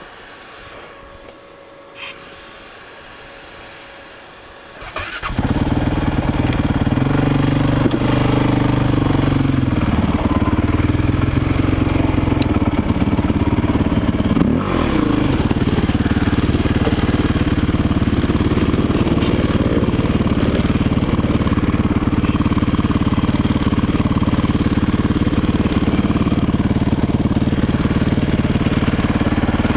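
Off-road motorcycle engine starting suddenly about five seconds in, then running steadily. Its pitch rises and falls a few times just after it starts, as it is revved.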